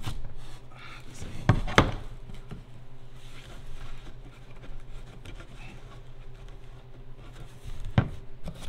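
A few light knocks and clicks of a metal Stanley No. 18 sliding T-bevel being set and adjusted against a wooden rafter: two close together about a second and a half in, another near the end, over a steady low hum.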